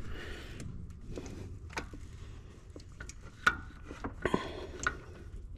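Scattered light metallic clicks and taps, with a few brief rustles, from hands working an oil pressure sensor loose on an engine.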